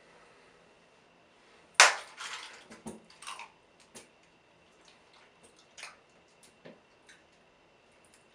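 A sudden loud impact about two seconds in, followed by about a second and a half of clattering, then scattered light clicks and knocks.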